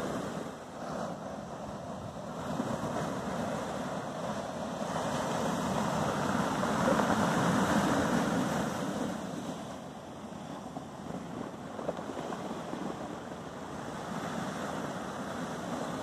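Sea waves breaking and washing over a shingle beach of rounded pebbles, one surge building to its loudest about halfway through and then easing, with wind.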